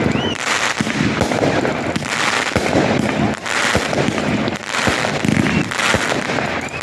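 Fireworks going off: a dense run of bangs and crackling, many reports close together with no pause.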